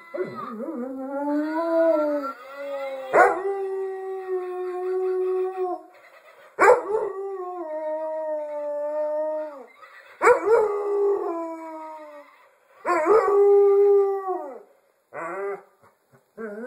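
Dog howling: a series of about five long howls, each held at a steady pitch for two to three seconds and then falling away, several of them starting with a sharp, loud onset. Two short yelps follow near the end.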